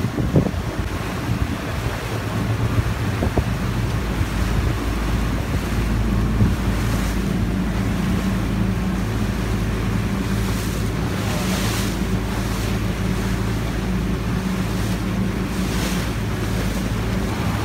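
Wind buffeting the microphone over splashing, slapping water, with the steady low drone of boat engines underneath that grows stronger partway through.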